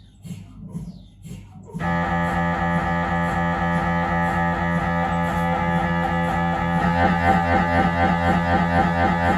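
Siemens Magnetom Avanto 1.5 T MRI scanner's gradient coils during a head scan: soft knocking about three times a second, then, about two seconds in, a loud buzzing drone of several steady tones with a fast pulse starts abruptly as a new imaging sequence begins.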